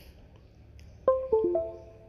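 Computer's USB device notification chime, three quick notes falling in pitch, as the phone's MediaTek USB port is detected on reconnecting.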